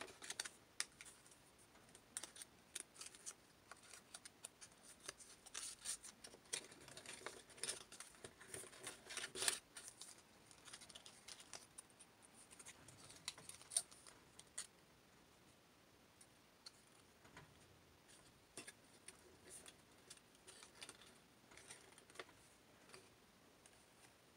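Thin cardboard triangles handled and folded together by hand: faint scattered taps, clicks and papery rustles, busiest in the first ten seconds, with the loudest rustle about nine and a half seconds in, then sparser.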